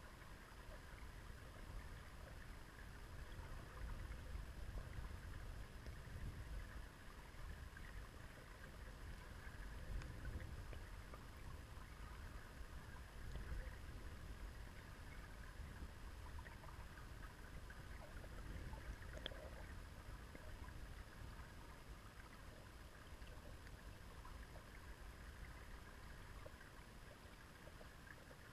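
Faint river water flowing, heard through a camera housing under the surface: a low rumble that swells and eases, over a faint hiss with scattered small ticks.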